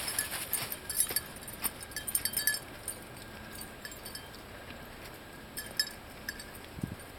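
Dogs trotting through dry fallen leaves: crackling leaf litter and the light metallic jingle of collar tags, busy for the first two and a half seconds, then only scattered clicks.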